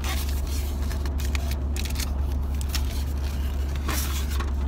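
Steady low road rumble inside a moving car's cabin, with scrapes and knocks from a foam packaging box being handled and opened.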